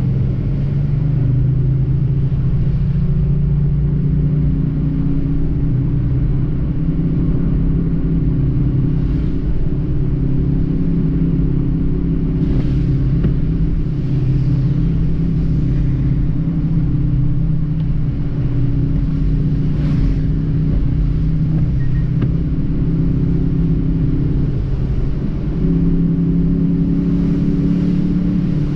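Car engine running steadily with low road rumble from tyres on a wet road, heard from inside the car; the engine note rises slightly near the end.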